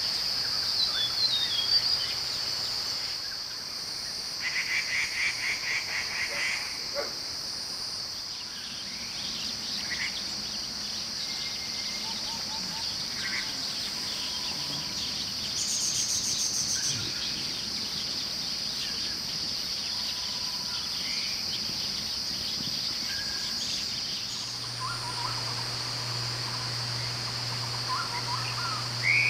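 Outdoor insect chorus: a steady high-pitched drone of crickets or similar insects, with scattered bird chirps and a short run of rapid pulsed calls a few seconds in. A low steady hum comes in near the end.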